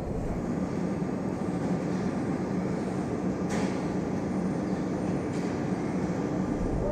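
Train running steadily in a station: a dense low rumble with a held hum. A brief sharp click or clank comes about three and a half seconds in, and a fainter one a couple of seconds later.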